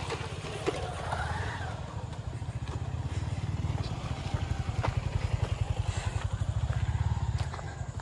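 A motorcycle engine running with a low, rapid, even beat. It grows louder towards the end, then drops off about seven and a half seconds in.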